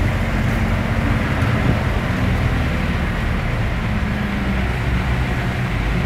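Steady low engine drone and road noise heard from inside a slow-moving car, with a diesel truck running just ahead.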